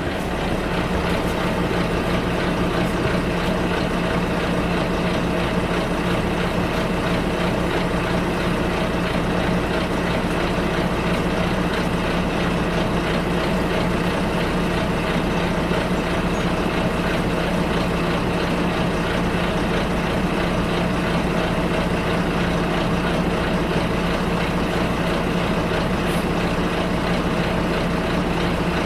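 Bus engine and running noise heard from inside the bus: a steady drone with a constant hum and no sudden events.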